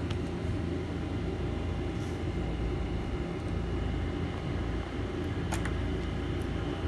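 Steady low background hum and rumble of the room, with one faint click about five and a half seconds in.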